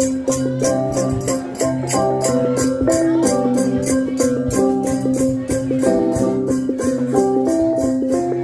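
Central Highlands cồng chiêng gong ensemble playing: several flat gongs struck with mallets, their ringing notes overlapping in an interlocking melody over a steady, quick high beat about four times a second.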